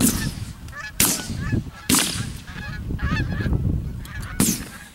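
Shotguns firing at a flock of low-flying geese: four sharp blasts, three in quick succession about a second apart and one more near the end. Geese honk between the shots.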